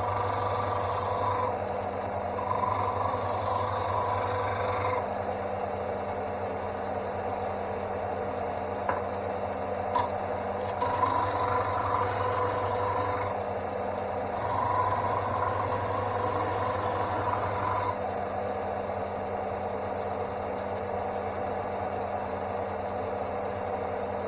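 Draper Storm Force belt-and-disc sander running steadily while a wooden block is pressed against its sanding disc in four passes, each a few seconds of scratchy rasping over the motor hum. After the last pass, about three quarters of the way through, the motor runs on alone.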